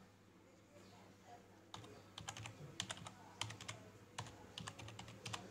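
Typing on a computer keyboard: after about a second and a half of quiet, a run of irregular keystroke clicks.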